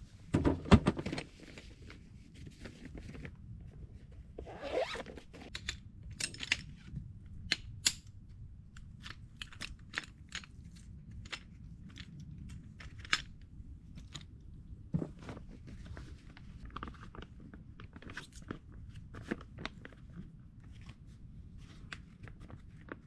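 Food-preparation handling sounds: irregular crisp clicks and crunches, with a louder knock about half a second in.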